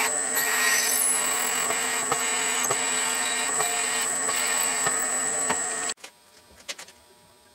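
Drill press running with its twist drill boring through a thick aluminum hub: a steady high whine over the motor's hum. It cuts off suddenly about six seconds in, followed by a few faint clicks as a hand tap is turned in the hole.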